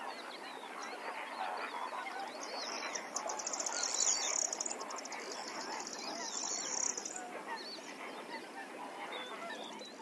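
A large flock of birds calling over one another, many short calls at once. A high, rapid buzzing trill joins in from about two and a half to seven seconds in.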